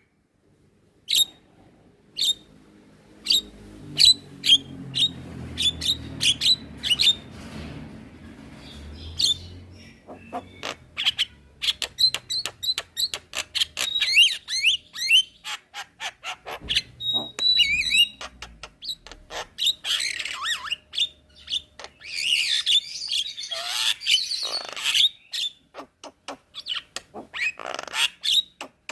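Javan myna (jalak kebo) singing: a rapid string of sharp clicks and chips mixed with short whistled notes, with a burst of harsh, rasping calls about two-thirds of the way through.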